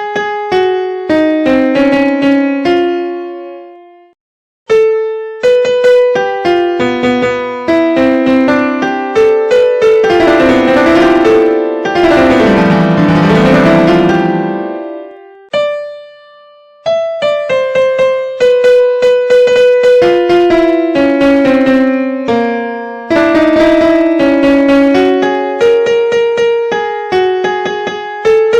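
Instrumental banjo ringtone tune: a quick melody of plucked notes that each fade, with a dense run of rapidly repeated notes in the middle and short breaks about four and sixteen seconds in.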